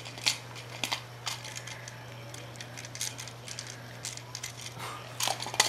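A dog chewing and gnawing a hard plastic toy: irregular clicks and taps of teeth on plastic, a few louder ones near the end.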